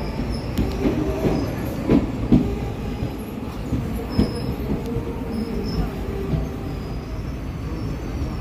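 ICF passenger coach running on the track: a steady low rumble of wheels on rails, with a few sharp knocks and clacks around two seconds in and again around four seconds.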